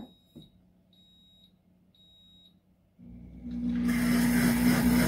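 Pampered Chef Deluxe Cooking Blender starting its sauce program: a button click, three short high beeps about a second apart, then about three seconds in the motor starts with a hum and runs up to full speed, blending loudly.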